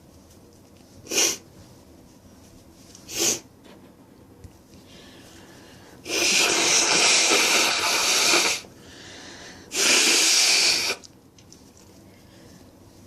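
A person with a runny nose blowing their nose hard twice: a long blow of about two and a half seconds, then a shorter one of about a second. Before them come two short, sharp sniffs.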